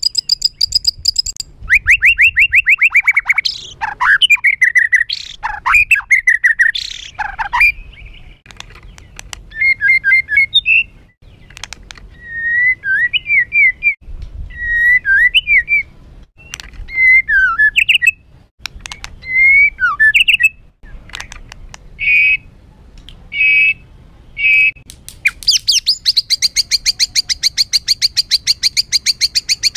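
White-rumped shama (murai batu) singing a loud, harsh, varied song: rapid high trills at the start and again near the end, with whistled sweeping phrases between them and three short separate notes just before the final trill.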